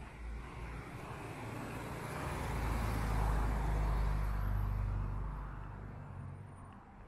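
A car driving past on the street: engine and tyre noise swell to a peak about three to four seconds in, then fade away.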